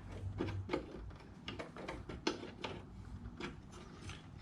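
Irregular light metallic clicks and ticks of hand tools working loose the air-conditioning line fittings.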